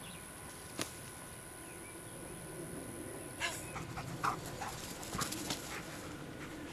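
A Chesapeake Bay Retriever giving a few faint, short whines while it runs out for a thrown training dummy. A single sharp click comes about a second in.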